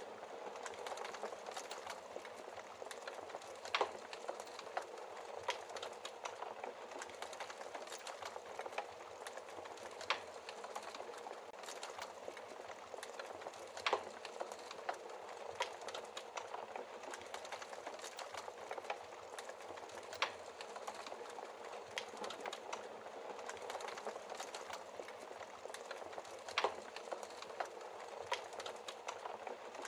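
Wood fire crackling in a fireplace: a steady hiss of burning with constant small crackles and five louder pops spread through.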